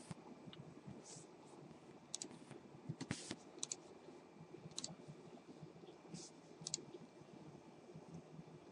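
Faint, irregular clicks and taps of a computer keyboard and mouse over low room tone, the loudest cluster about three seconds in.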